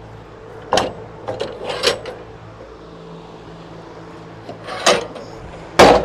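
Sharp knocks and clunks of a wooden board being turned over and set on a band sawmill's bed, four in all, the loudest near the end, over a steady low hum.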